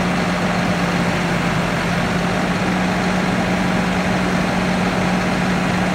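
Lorry's diesel engine running steadily with a constant low hum, driving the hydraulics of the lorry-mounted Palfinger crane that is holding the load.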